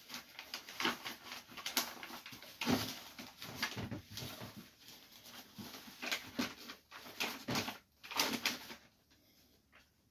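Backing paper being peeled off a self-adhesive neoprene foam insulation sheet, the paper crackling and rustling in irregular strokes while the sheet is pressed down. It dies away about nine seconds in.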